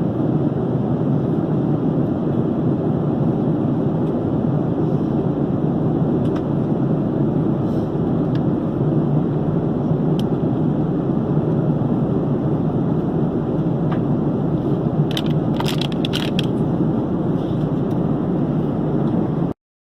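Jet airliner cabin noise: a steady, even drone of engines and airflow, with a few faint clicks about three-quarters of the way through. It cuts off suddenly shortly before the end.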